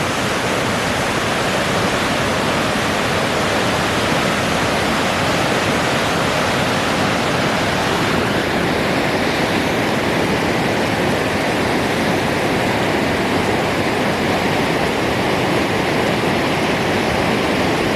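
Waterfall: a loud, steady rush of falling water, shifting slightly in tone about eight seconds in.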